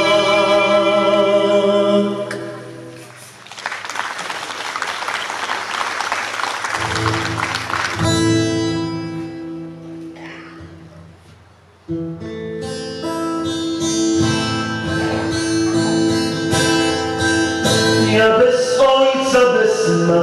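A man's singing voice holds a long note with vibrato to end a song, followed by a few seconds of applause. Then music with acoustic guitar comes in and fades away, and after a sudden cut acoustic guitar with keyboard accompaniment plays a song's instrumental introduction.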